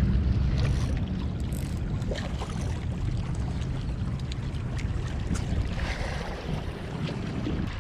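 Steady low rumble of wind buffeting the microphone, with faint ticks as a spinning reel is cranked in.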